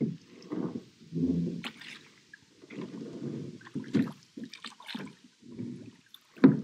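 Oars of a small rowing boat swishing and splashing through lake water in a series of strokes, about one a second, with a few sharp knocks; the loudest knock comes near the end.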